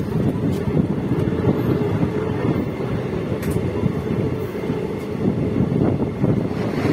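Passenger train coaches rolling along the rails as the train pulls out of a station, heard from an open coach doorway: a steady low rumble of wheels on track with a couple of faint clicks.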